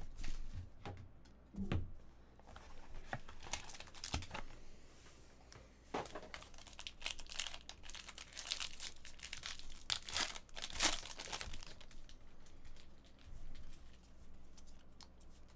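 Plastic and foil wrapping of a sealed trading-card box and pack crinkling and tearing as they are opened by hand, in irregular crackles, the loudest about eleven seconds in.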